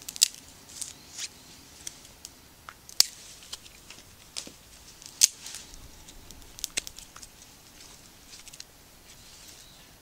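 Dry twigs crackling and snapping in a small twig fire: irregular sharp pops, three of them much louder than the rest, thinning out near the end, as a hand feeds more twigs into the stove.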